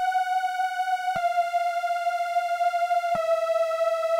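A synthesizer playing a slow descending line of long held single notes, stepping down in pitch about a second in and again near three seconds in, with a bright tone full of overtones.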